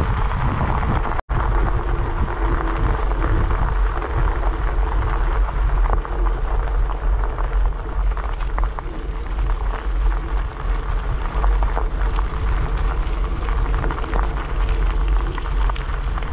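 Wind buffeting the microphone and fat-bike tyres rolling on a gravel road: a steady, deep noise that cuts out for an instant a little over a second in.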